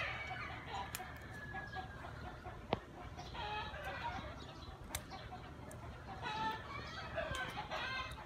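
Faint clucking calls of farmyard fowl in two short groups, about three and a half seconds in and again from six to eight seconds, with a few light clicks.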